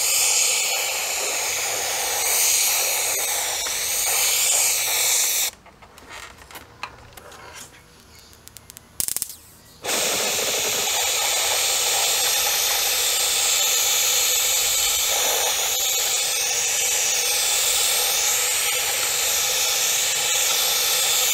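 Paint spray gun hissing as it sprays black paint onto the bell set's metal parts, in two long passes with a pause of about four seconds between them, during which a few small clicks are heard.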